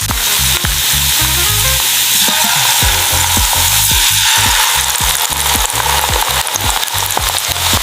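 Food frying in hot oil in a pan, sizzling loudly and steadily, over a low, regular beat.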